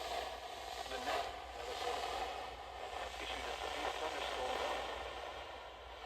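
Weather radio broadcast received through heavy static: a hissing, crackling signal with a voice barely made out under it.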